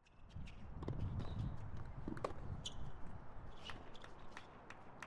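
Outdoor hard-court tennis sounds: a tennis ball bounced on the court by the server before a serve, among many light, irregular clicks and knocks, over a low background rumble. The sharpest knock comes about two seconds in.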